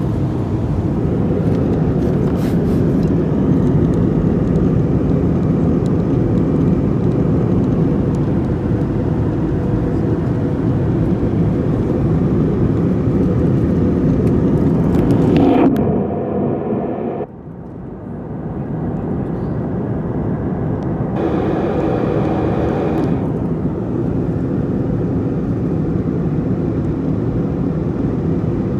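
Steady airliner cabin noise: engine and airflow rumble heard from a passenger seat. About halfway through it dips suddenly and thins out for a few seconds, then comes back to the same steady level.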